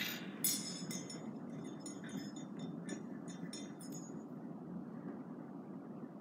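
A quick series of light, high clinks from small hard objects being handled, starting about half a second in and stopping near four seconds, over a steady low background hum.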